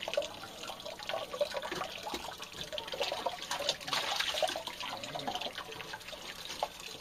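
Water splashing and trickling as fish are rinsed and rubbed by hand on the ribbed board of a concrete washbasin, with a pour of water from a bowl about four seconds in, the loudest part.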